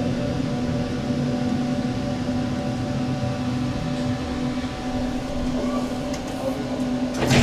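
Tram running: a steady electric hum over rolling noise, with a sharp knock near the end.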